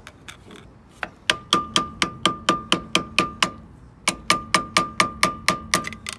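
Hammer striking a steel drift against the hub's lock washer to knock its tab back: two runs of quick, ringing metal-on-metal blows, about four or five a second, with a short pause between.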